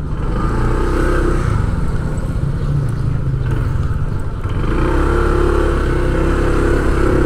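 Motorcycle engine running steadily on the road, with a steady hum that fades for a few seconds in the middle and comes back stronger.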